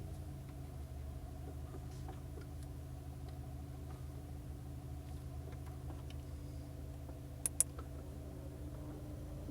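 Inside the cabin of a 2002 Audi A4 B6 with the 1.6 petrol four-cylinder idling steadily, faint ticks sound now and then and two sharp clicks come close together near the end. It is the kind of strange noise from the dashboard area whose cause the owner cannot tell, normal or a fault.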